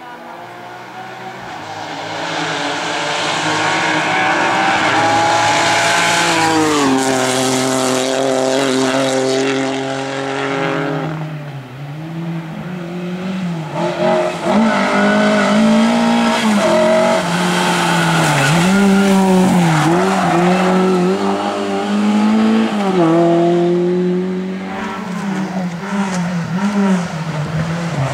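Rally car engine at hard throttle, growing louder as it approaches, dropping in pitch about seven seconds in, then revving up and down repeatedly with gear changes and throttle lifts as it drives on.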